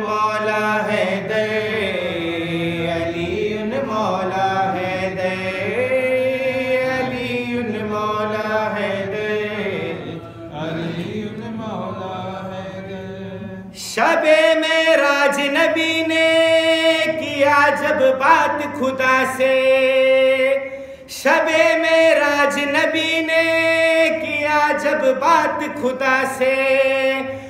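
A man singing a solo, unaccompanied devotional chant in long, drawn-out, wavering notes. His voice sinks a little just before halfway, then comes back louder and brighter from about halfway through, with a brief pause near three-quarters of the way.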